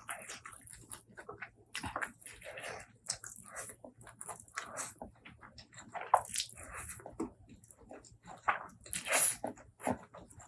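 Close-miked eating: wet chewing and lip-smacking in irregular bursts, with a couple of louder bites about six and nine seconds in.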